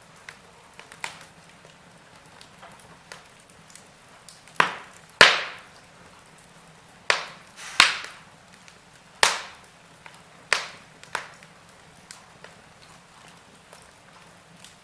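Wood fire crackling in a fireplace: scattered sharp pops and snaps, the loudest about a third of the way through and most of them bunched in the middle, over a faint steady background.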